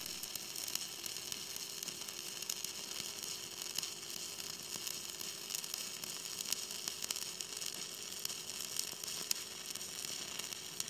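Stick (arc) welding with 1/8-inch 7018 electrodes at around 130 amps: the arc gives a steady crackling sizzle, full of fine pops, as a bead is run on steel plate.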